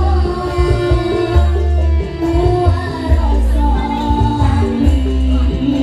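Loud amplified live music: girls singing into microphones over a Yamaha electronic keyboard backing with a heavy drum beat.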